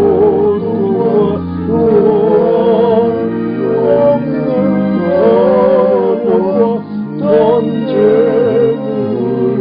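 Soprano, tenor and bass voices singing a Korean hymn in parts, with vibrato, over a sustained accompaniment.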